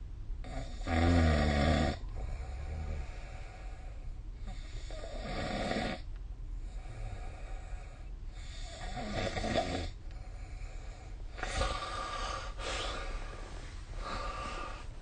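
A sleeping person snoring, recorded on a phone: a rhythmic snore on each breath, roughly one every three to four seconds. The first snore, about a second in, is the loudest.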